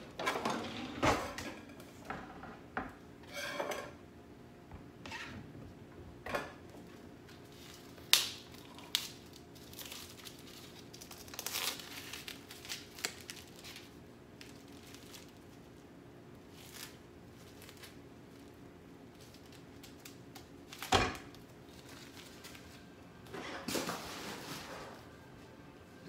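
Plastic film being torn and crinkled off a tray of ground beef, in short rustling bursts with a few knocks of kitchen handling, the sharpest about 8 and 21 seconds in.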